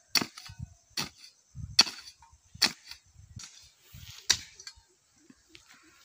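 A hand hoe (fawda) chopping into the soil in about five sharp strikes, roughly one every 0.8 seconds, which stop about four and a half seconds in. This is the hoeing that loosens the soil before it is earthed up around the potato plants.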